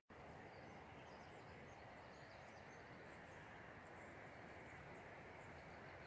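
Near silence: faint outdoor ambience with a few faint, short high chirps.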